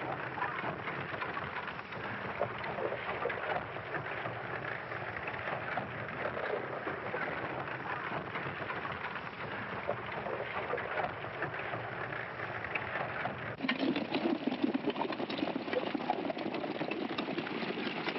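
Horses galloping on a dirt road, a dense clatter of hoofbeats with heavy hiss on the old film soundtrack. It gets louder and fuller about 13 seconds in.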